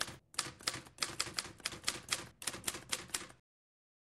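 Typewriter key strikes used as a sound effect for text typing onto the screen: a fast run of sharp clicks, about six a second, with a brief break just after the start. The clicks stop abruptly about three and a half seconds in, leaving dead silence.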